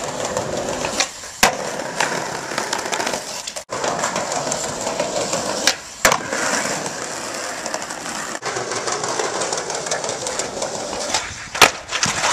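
Skateboard wheels rolling over paving slabs, with sharp pops and clacks of the board on stone as tricks are tried on a ledge and steps. The loudest crack comes near the end as the board slaps down and the rider falls.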